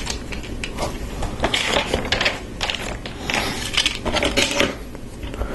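Small plastic Lego pieces clicking and rattling as they are handled, pressed onto a build and shuffled across a tabletop, in quick clusters of clicks.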